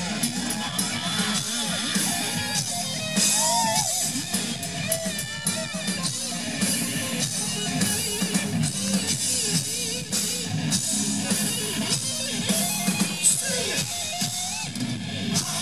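Hard-rock band playing live at full volume: distorted electric guitar with wavering, bending lead notes over bass and a pounding drum kit.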